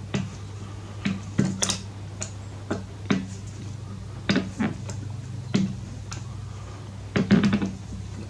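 Hand tools clinking and knocking on metal as the bolt is refitted in a motorcycle's rear brake caliper: irregular sharp clicks, with a quick cluster near the end. A steady low hum runs underneath.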